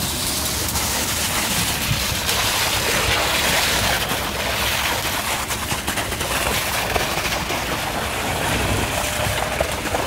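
Steady rushing noise over a low mechanical rumble: a concrete pump running during a floor-slab pour.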